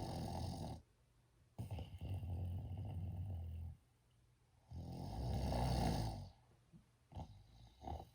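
A person snoring: long, loud snores of a second or two each, three in a row with short silent gaps between, then a few shorter, weaker snorts near the end.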